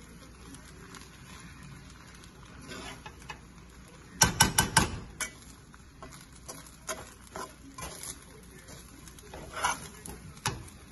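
Spoon stirring and turning fried rice in a pan, with light scraping and clinks, and about four seconds in a quick run of about five sharp taps of the spoon against the pan.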